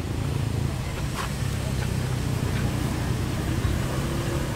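Steady low rumble with a faint hum, like a motor vehicle's engine.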